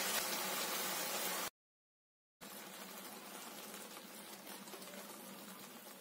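Chopped tomatoes, onion and chillies sizzling and bubbling in oil in a kadai. The sound cuts off abruptly about a second and a half in, and after a brief gap of silence the sizzle resumes, quieter.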